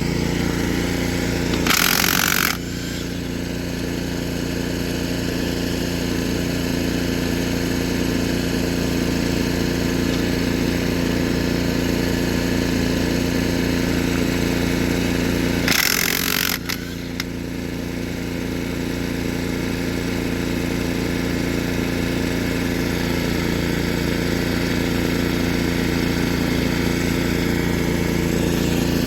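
An engine runs steadily, with two short, loud bursts of hissing noise cutting in about two seconds in and again about sixteen seconds in.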